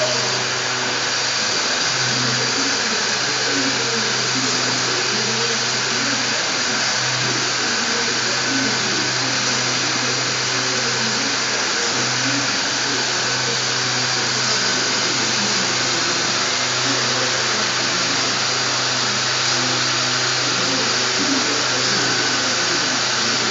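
Gottschild HBS 2600 automatic sanding and polishing machine running steadily: a constant motor hum under an even rushing noise.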